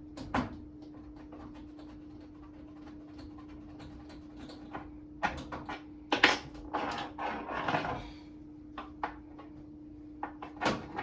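A few light knocks and a stretch of scraping and rustling as a mounting screw and the microwave are worked against the wall plate while the screw hole is searched for, over a steady low hum.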